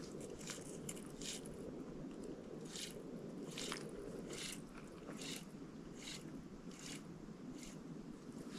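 Fly line being stripped in by hand through the rod guides while retrieving a mouse fly, short dry scraping strokes about once a second. Under them runs a faint steady low rush.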